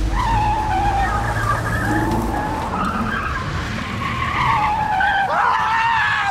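Car tyres squealing in one long, wavering screech as the car takes off hard, with a low rumble underneath.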